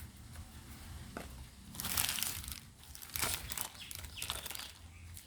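Packaging being handled, crinkling and rustling in irregular bursts, loudest about two and three seconds in.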